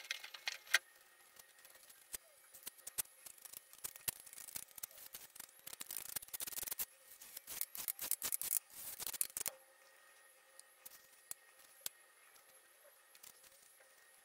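Wood glue being spread across a wooden panel with a hand spreader: a run of rapid scratchy strokes that stops about two-thirds of the way through. After that there are only a few light taps and clicks.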